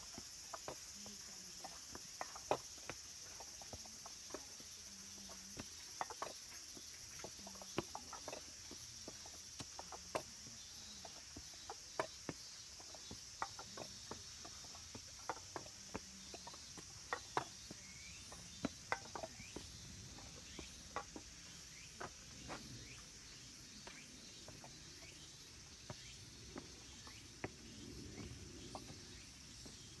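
A steady high chorus of cicadas singing, with sharp irregular taps of footsteps on stone steps, one or two a second, on top.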